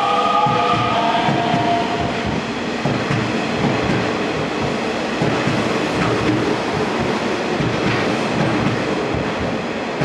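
Nishitetsu 3000-series electric train pulling out of the station. A rising electric motor whine fades in the first two seconds. Then comes the running noise of the cars sliding past, with repeated wheel knocks over the rail joints.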